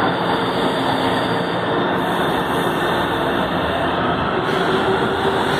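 Stainless-steel São Paulo Metro train moving along the station platform: a steady, loud rumble of wheels on rail and running gear, with a faint steady hum under it.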